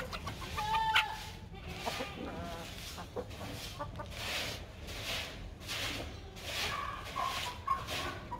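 Chickens clucking, with short calls about a second in and again near the end, over a steady low hum.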